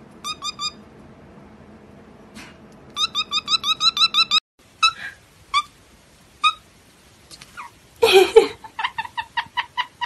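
Pet parrots chirping: a cockatiel gives a few short rising whistled chirps, then a fast run of about a dozen. After a break, a white-bellied caique gives spaced squeaky chirps, a louder rough burst about eight seconds in, and a quick run of chirps near the end.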